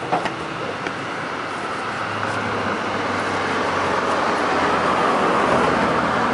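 Street traffic noise from a passing motor vehicle, a steady rush with a low engine hum that swells over several seconds and peaks near the end. A few light clicks sound near the start.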